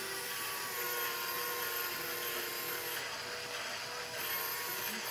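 Small electric motor of a custom RC roll-off truck's hoist whining steadily as it tilts the container down. The whine changes about three seconds in, and a higher whine comes back briefly near the end.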